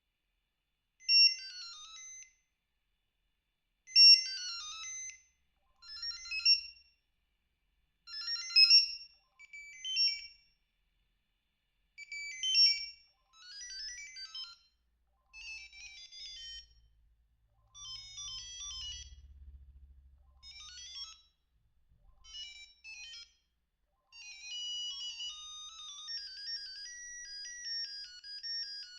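Mitsubishi Trium Astral MT-140 mobile phone playing its built-in ringtones through its small speaker: a run of short electronic beep tunes, each about a second long and cut off before the next starts, as the ringtones are previewed one after another. Near the end one tune plays on unbroken.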